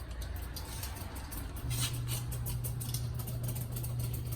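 A steady low hum that sets in a little under two seconds in, under frequent light clicks and scratches.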